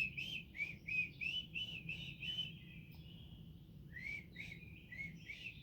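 A songbird calling a rapid series of short, clipped chirps, about three a second, in two runs separated by a pause of about a second and a half.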